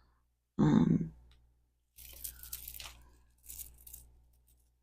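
Crinkly rustling and light handling noises as a long, tangled necklace is picked up and worked loose, after a brief vocal sound about half a second in.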